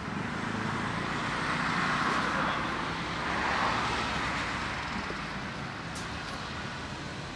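Passing road traffic: a steady rushing that swells about two seconds in and again around three and a half seconds, then eases off.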